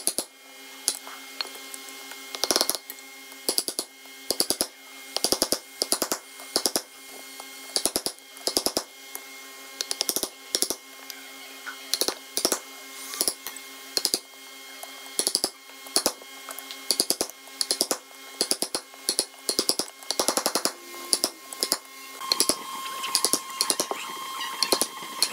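Wooden mallet striking a steel chisel that is cutting into a hardwood block, in bursts of several quick blows with short pauses between.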